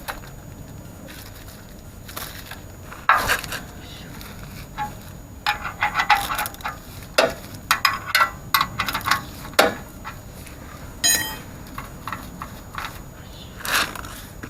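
Irregular clinks and knocks of metal tools and parts being handled, with one brief metallic ring about eleven seconds in.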